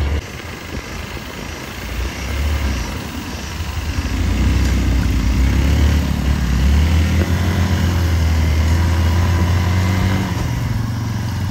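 Motorcycle engine running under way with a steady low rumble, getting louder about four seconds in.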